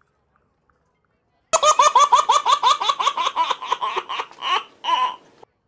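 A baby laughing hard in a quick run of repeated bursts, about six a second. It starts abruptly about a second and a half in, tapers off and stops suddenly near the end.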